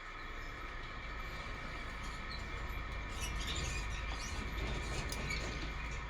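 A machine running steadily, with a steady high whine over a low rumble that sets in at the start.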